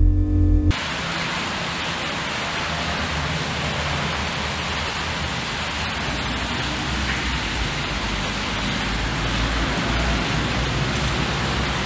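Loud droning noise from a homemade electronic noise instrument cuts off abruptly under a second in. A steady rushing hiss of water running through a concrete drain tunnel follows.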